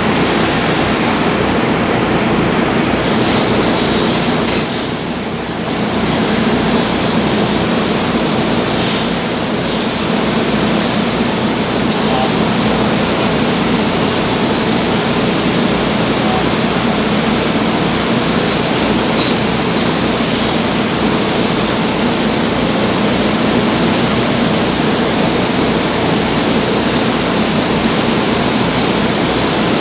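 Steady loud machinery noise with a constant low hum, briefly dipping about five seconds in.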